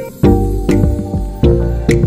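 Background music: sustained instrumental notes over a steady beat.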